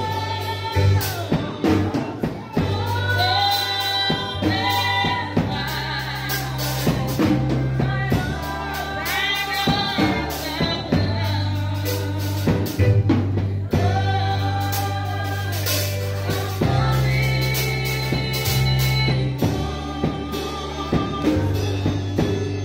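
Gospel praise team singing into microphones, a lead voice with backing singers, over live instrumental backing with steady bass and drums.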